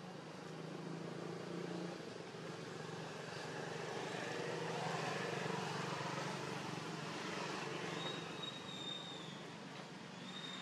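Steady low drone of a distant engine, growing louder through the middle and easing off near the end, with a brief faint high whistle toward the end.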